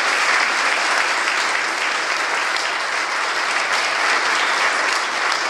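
Audience applauding, a steady clapping that holds level.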